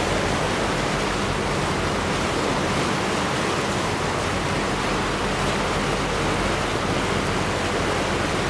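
Steady rushing noise of a river tour boat under way: water and wind noise with a low, even hum beneath.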